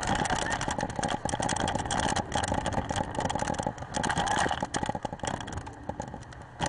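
Motorboat running at speed on a river: steady engine noise mixed with rushing water and wind buffeting the microphone.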